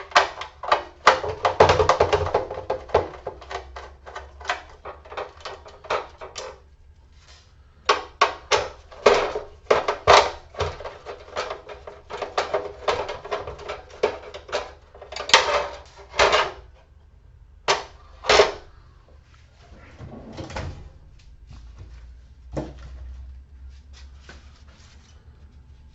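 Rapid clicking and clattering of metal parts and hand tools being handled, thickest in the first six seconds and again from about eight to eighteen seconds, then a few scattered knocks.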